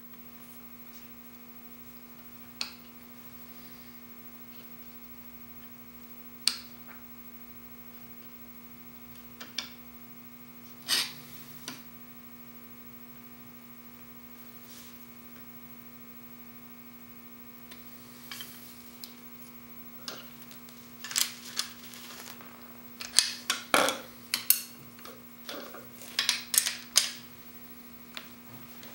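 Steady electrical hum under scattered sharp clicks and light metal taps as a chisel clamped in a honing jig is handled and adjusted on diamond sharpening stones. The taps come thicker and closer together in the last ten seconds.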